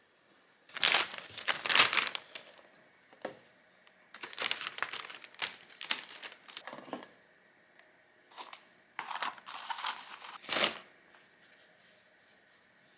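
Rustling handling noise from something being handled, in three bouts: about a second in, again from about four to seven seconds, and from about nine to eleven seconds.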